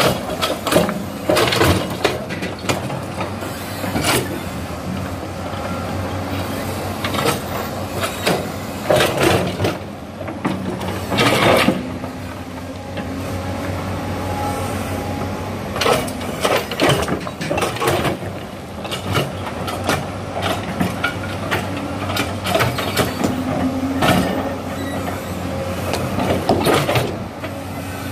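Diesel hydraulic excavators running with a steady engine drone, with irregular scraping and clattering as a steel bucket digs into gravelly sand and rocks.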